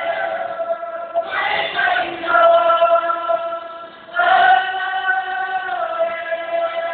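Kapa haka group of men and women singing together in long held notes, with a new phrase starting about a second in and another about four seconds in.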